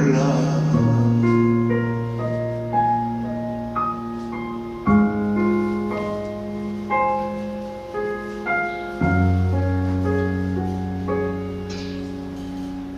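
Slow instrumental piano outro of a ballad: low chords change about every four seconds, with a gentle melody of single notes over them.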